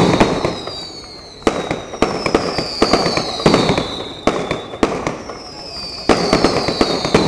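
Fireworks display: sharp bangs and crackling from bursting shells, with a high whistle falling in pitch that comes back about every two seconds.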